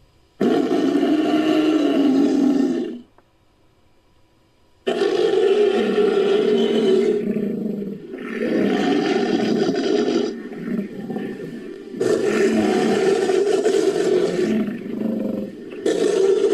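Designed Ankylosaurus creature sound effect: a string of long, low roaring calls, each two to three seconds, with one silent pause of about two seconds after the first call and the rest coming back to back.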